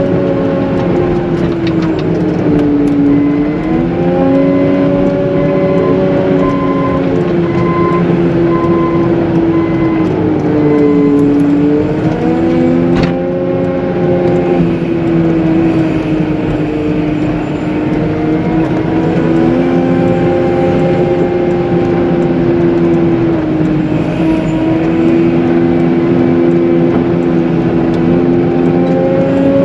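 Caterpillar 906M compact wheel loader's diesel engine working hard, its pitch sagging under load and rising again several times as it pushes through heavy wet slush. A regular beeping sounds from about a second in until about eight seconds in.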